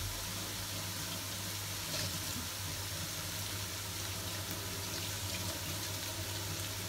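Kitchen tap running steadily into a stainless-steel sink as a foam meat tray is rinsed under the stream.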